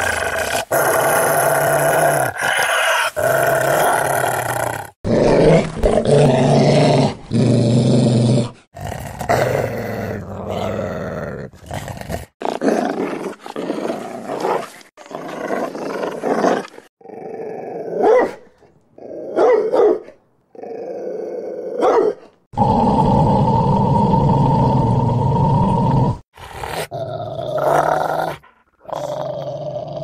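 Dog growling: a run of separate growl recordings joined one after another, each starting and stopping abruptly. A few shorter bursts come in the middle, before a longer steady growl near the end.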